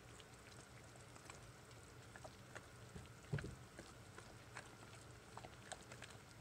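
Faint scraping and soft clicks of a spatula stirring thick hot-process soap batter in a slow-cooker crock, as a honey and brown sugar mixture is worked in. One slightly louder knock comes about three seconds in, over a low steady hum.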